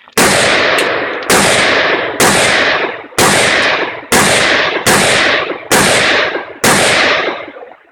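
Rifle fired in a steady string of about eight shots, roughly one a second, each shot followed by a long echoing tail.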